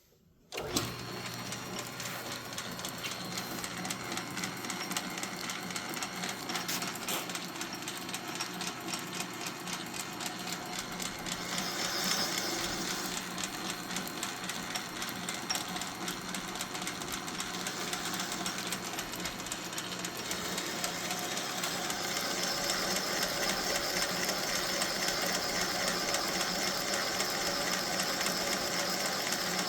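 South Bend 9-inch metal lathe switched on about half a second in and running under its 3/4 hp single-phase motor: a steady hum with a fast, even clatter from the drive. The sound shifts a little about twelve seconds in and again about twenty-one seconds in.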